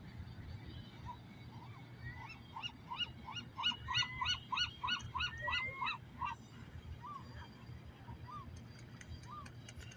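Geese honking: a quick run of overlapping honks, about three or four a second, over the first six seconds, then single honks about once a second.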